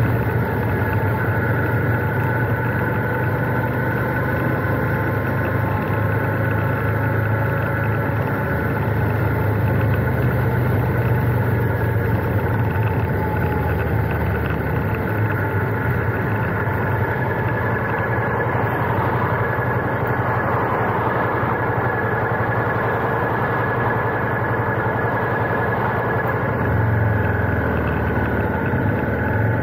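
Royal Enfield Interceptor 650's parallel-twin engine running steadily, heard from the handlebar, with a dense rushing noise over it. The low engine note shifts briefly near the end.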